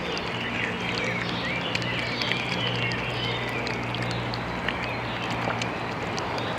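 Birds chirping, many short high calls overlapping, over a steady low hum and background noise.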